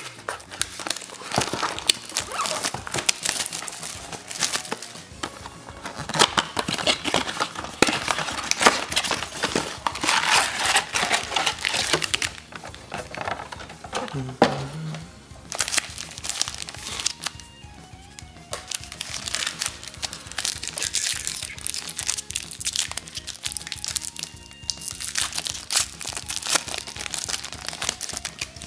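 Foil trading-card pack wrappers crinkling and tearing as packs are ripped open by hand, in spells of dense crackling with short lulls between. Faint music with steady tones runs underneath.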